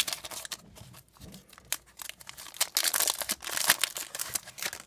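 Foil wrapper of a Pokémon trading card booster pack crinkling in the hands as the cards are pulled out of the torn-open pack, in irregular crackly rustles.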